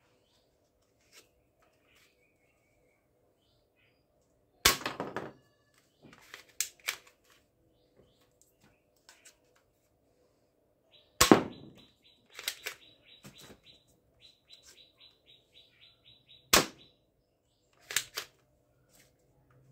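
Spring-loaded plastic toy dart pistol being cocked and fired: three loud, sharp plastic snaps, a few seconds apart, with smaller clicks of handling and loading between them. A bird chirps rapidly in the background through the middle stretch.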